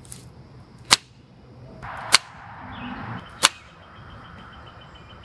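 Three sharp clicks of a golf iron striking golf balls on short chip shots, a little over a second apart.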